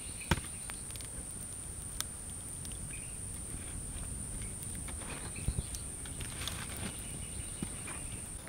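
Steady high-pitched insect drone from the woods, with a wood campfire crackling and giving a few sharp snaps, the loudest about a third of a second in.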